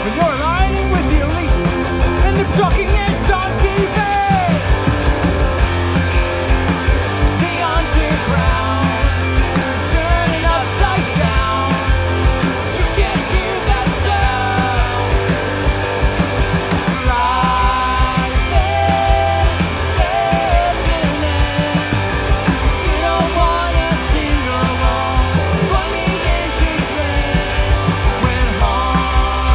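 Punk rock band playing live: electric guitars, electric bass and a drum kit, with a man singing lead.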